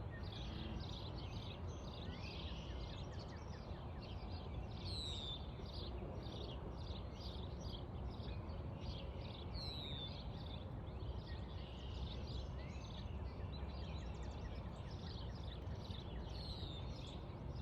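Steady low outdoor background noise with small birds chirping throughout, many short high calls in quick succession.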